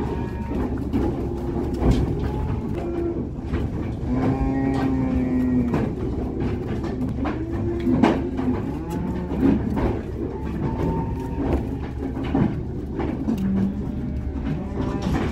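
Beef cows in a sale-yard pen mooing again and again, several long calls, some overlapping, with a couple of sharp knocks over a steady low background noise.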